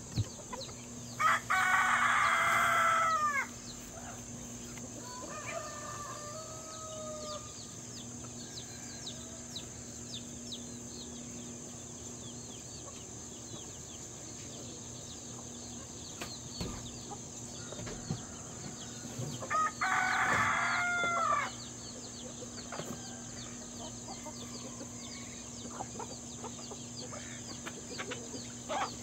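Roosters crowing: two loud crows of about two seconds each, one about a second in and one about twenty seconds in, with a fainter crow a few seconds after the first. Between them a flock of chickens clucks softly, over a steady high hiss.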